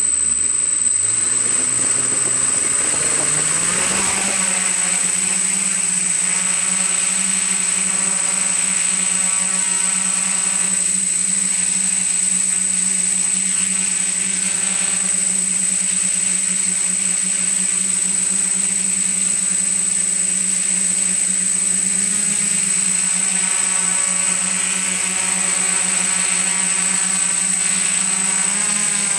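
Electric motors and propellers of a multirotor drone, heard from the aircraft itself. They spool up with a rising hum over the first few seconds as it lifts off, then run steadily in flight with a constant high whine over the hum.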